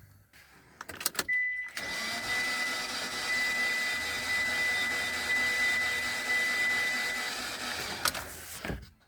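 Mitsubishi engine cranking over on its starter motor for about six seconds without catching, a cranking no-start, with a thin steady high whine over the cranking. Clicks before it begins and as it stops.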